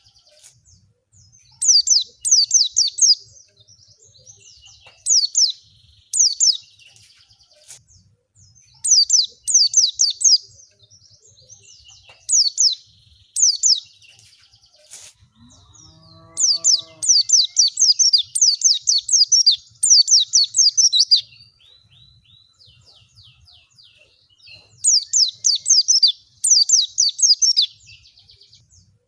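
White-eye (pleci) song used as a lure: short bursts of rapid, high twittering notes, each sliding quickly downward, repeated with short gaps and in longer runs a little past halfway and near the end. About halfway through, a brief lower call with a rising pitch sounds under the song.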